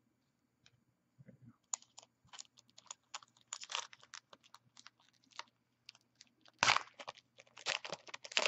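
Foil trading-card pack being worked open by hand, its wrapper crinkling and tearing in a run of quick crackles from about a second in, loudest near the end.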